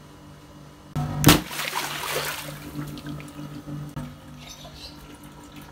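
Water-filled inflatable toy bursting: a sudden rush and a sharp pop about a second in, then water gushing out and splashing, fading over the next two seconds.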